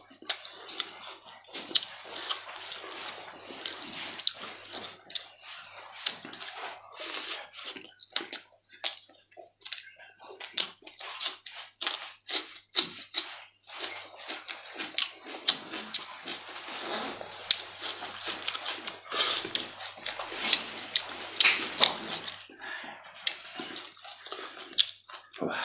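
Close-up wet chewing and mouth sounds of eating boiled meat sausage, with irregular sharp clicks from a knife slicing the sausage on a wooden board.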